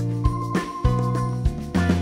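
Background music with a steady beat, about one and a half beats a second, over held bass notes and a sustained melody line.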